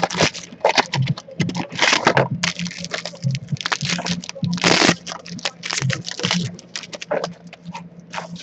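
Trading cards and their pack wrapper handled by hand: a quick, uneven run of crinkling, crackling and clicking rustles.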